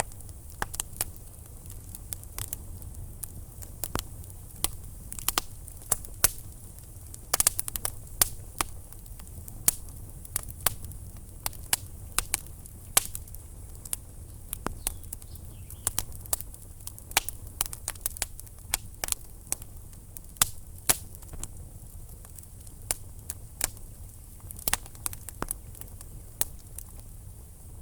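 Wood fire crackling in a fireplace: irregular sharp pops and snaps from the burning logs over a low steady rumble of the flames.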